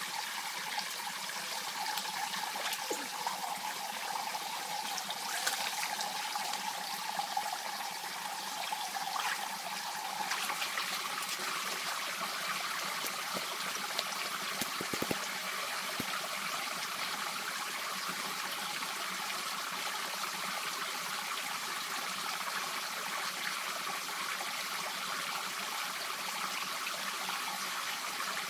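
Small forest stream trickling and splashing over rocks, a steady rush of water.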